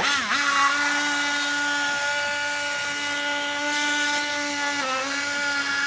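Electric sternal saw cutting through the breastbone for a median sternotomy: a steady high whine that starts abruptly and dips briefly in pitch about five seconds in.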